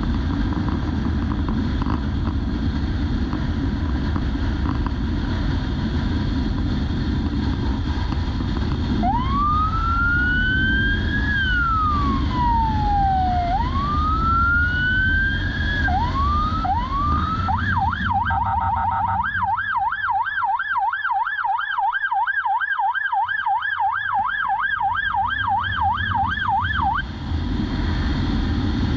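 Low wind and road rumble from a moving police motorcycle. After about nine seconds a police siren starts: two slow wails rising and falling, a few short rising chirps, then a fast yelp of about four cycles a second. The yelp stops shortly before the end and the rumble returns.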